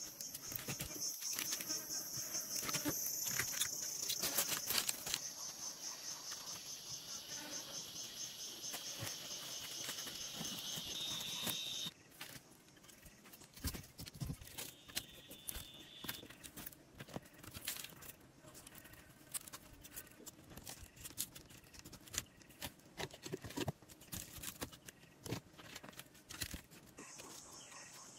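Insects chirping in a fast, steady high-pitched pulse. The chirping stops abruptly about twelve seconds in and gives way to scattered light clicks and knocks, then comes back near the end.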